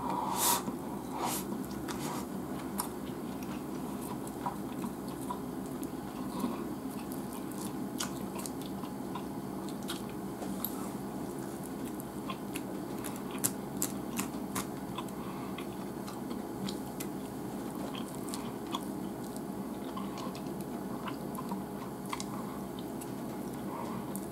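Chewing and biting of a mouthful of rice and grilled flounder, with scattered light clicks of chopsticks picking at the fish and touching plate and bowl, over a steady low background hum.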